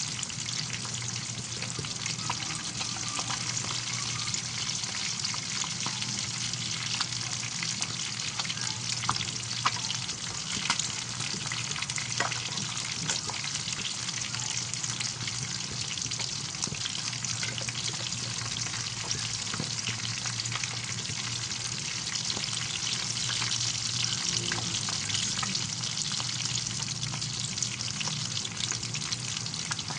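Food frying in hot oil in a pan: a steady sizzle full of small crackles and pops, with a low steady hum underneath.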